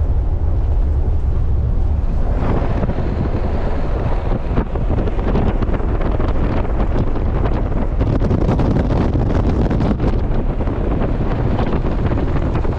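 Low rumble of a moving bus at highway speed with wind buffeting the microphone; the wind rush grows stronger about two seconds in.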